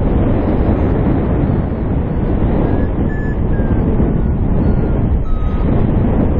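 Steady wind noise from the airflow of paraglider flight buffeting the microphone. Faint beeping from a flight variometer is heard from a few seconds in, the tones stepping slightly lower in pitch.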